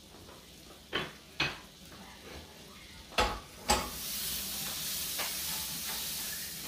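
Butter sizzling as it melts in a hot frying pan. A few sharp knocks as pieces of butter go into the pan, then a steady sizzle from about four seconds in.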